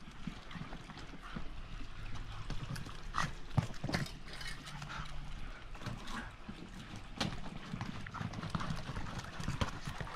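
A dog knocking and mouthing a deflated, water-filled basketball on brick pavers: irregular knocks, slaps and thuds.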